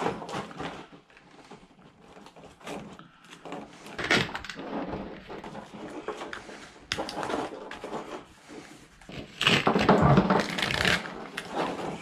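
Wiring harness being stripped and handled: irregular rustling, crackling and scraping of plastic split loom and tape, with knocks against the bench, loudest about ten seconds in.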